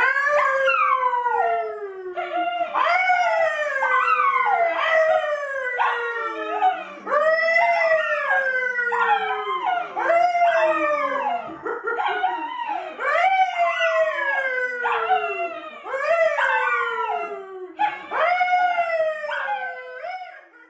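A man and a poodle howling together: a string of long howls that each fall in pitch, with a new one starting about every second.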